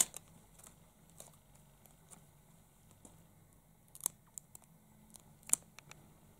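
Quiet paper handling: a homemade paper sticker is peeled and pressed onto a notebook page. There is faint rustling and a few sharp paper clicks, the loudest about four and five and a half seconds in.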